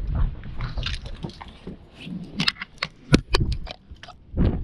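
Crinkling, crackling handling noise: a cluster of sharp clicks and crackles through the middle, with low wind rumble on the microphone at the start.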